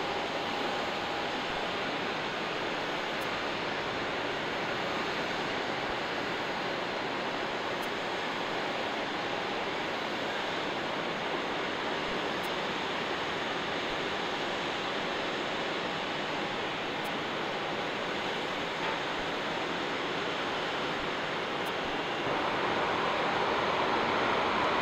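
Steady rushing noise of jet airliner engines, growing louder about 22 seconds in.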